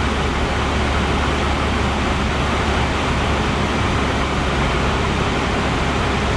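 Cessna 172's piston engine and propeller droning steadily in flight, heard from inside the cabin, with a constant low hum and no change in power.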